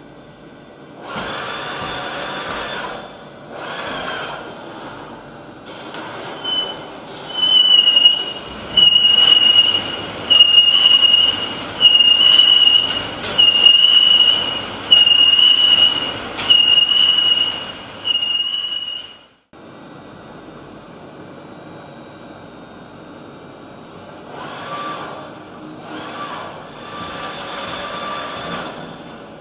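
Milling cutter on a CNC machine cutting metal in a string of short passes, each about a second and a half long with a high-pitched squeal. About two-thirds of the way through it cuts off to a steady machine hum, with a few softer cuts near the end.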